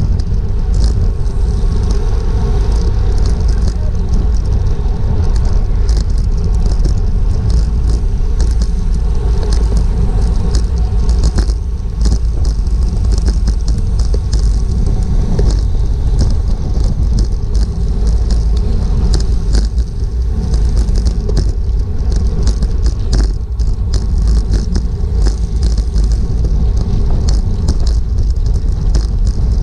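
Wind rushing over the microphone of a GoPro on a bicycle racing at speed, a loud, steady low rumble scattered with short ticks and clicks.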